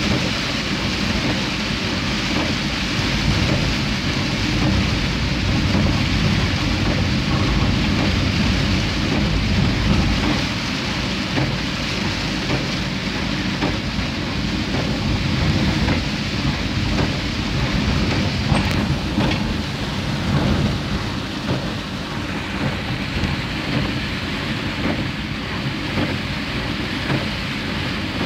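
Heavy rain drumming on a car's roof and windshield, heard from inside the moving car: a dense, steady patter of drops over a constant low rumble.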